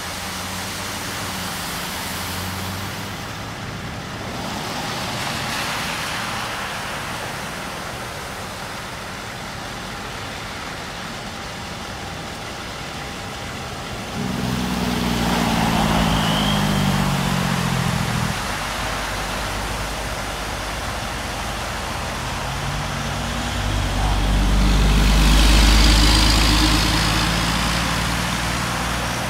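Vehicles driving through a flooded road, their tyres hissing and splashing through standing water. One vehicle passes about halfway in with its engine pitch falling. A heavy truck rumbles past near the end, the loudest sound.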